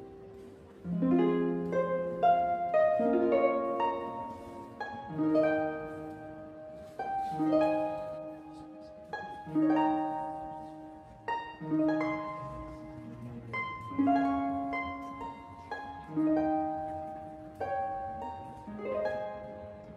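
Background music: a slow, gentle plucked-string melody, each note starting sharply and ringing away, with new notes about every one to two seconds.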